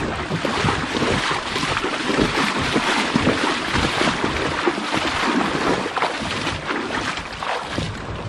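Splashing footsteps of a person wading through shallow river water while towing a kayak, with water sloshing around the legs and the boat's bow; a steady, uneven rush of splashes.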